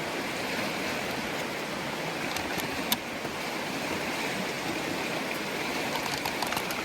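Steady rushing of a flowing river, with a couple of faint sharp clicks, one about three seconds in.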